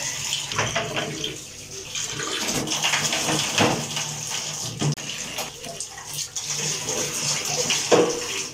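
Kitchen tap running steadily into a stainless steel sink while plastic dishes are rinsed under the stream, with a few short knocks and clatters as they are handled.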